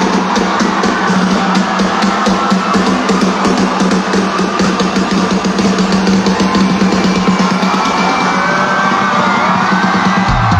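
A rock band playing live at full volume, driven by fast, dense drumming on a drum kit with bass drum and snare, under a steady low bass note. Sliding notes rise over the mix in the last couple of seconds.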